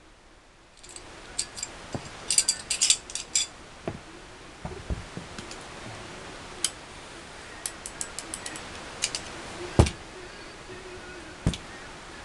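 Sharp metal clicks and clinks of an M1911A1 .45 pistol's parts being handled and taken apart by hand: a quick run of small clicks about two seconds in, scattered single clicks after, and a louder knock near the end.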